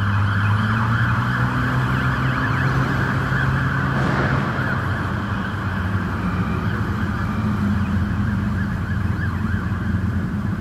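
Fire truck's electronic siren sweeping rapidly up and down over a steady low drone, as the appliance responds on a call.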